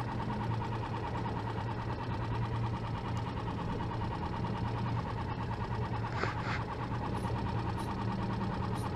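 A small motor running steadily, a low hum with a fast even pulse. A short noisy rustle breaks in about six seconds in.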